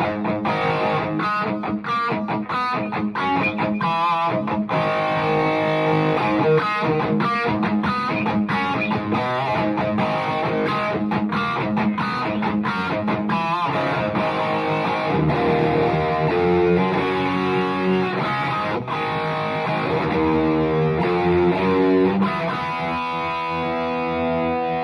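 Gibson Les Paul R9 electric guitar played through a 3rd Power Kitchen Sink amp. It starts with a run of quick picked riffing, moves to slower held chords about halfway through, and ends on a chord left ringing.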